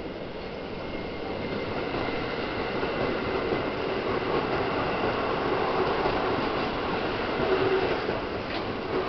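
Keikyu electric train passing along the platform track, a steady rumble of wheels on rails that grows louder over several seconds. A held tone comes through near the end.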